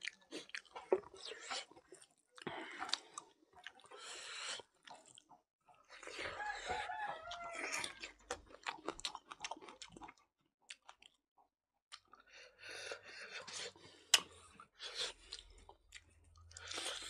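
Close-up chewing and mouth sounds of a man eating mutton curry and rice by hand: irregular bursts of chewing with short smacking clicks. There is a brief hum of voice about seven seconds in and a pause of about two seconds near ten seconds in.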